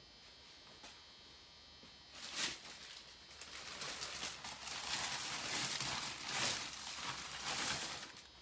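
Irregular rustling, scratchy handling noise, starting about two seconds in and lasting about six seconds.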